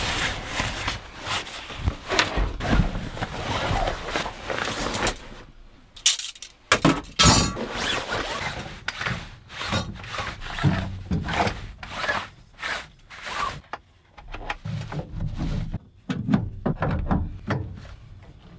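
Things being handled and set down: a busy run of rustling and knocks, the sharpest knocks about six to seven seconds in, then scattered thunks.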